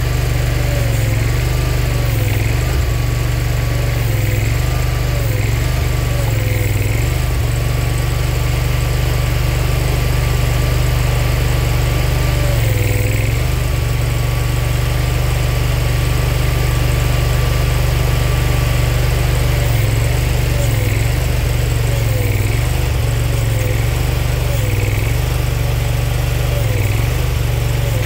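Boxer 427 mini skid steer's Kohler 27 hp Command Pro V-twin engine running steadily, with a whine that repeatedly dips in pitch and recovers as the hydraulics take the load of a heavy log in the grapple.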